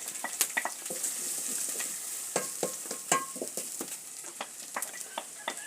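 Onions and freshly added carrots sizzling in hot cooking fat in a sufuria (a metal cooking pot), with a steady hiss and a spoon clicking and scraping against the pot many times as they are stirred.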